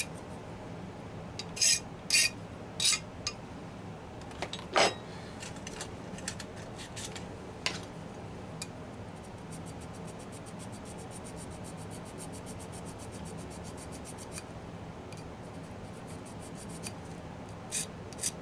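Coarse hand file rasping on a white metal HO locomotive frame: scattered strokes and taps at first, then a fast, even run of short strokes for about five seconds in the middle, and a few more strokes near the end.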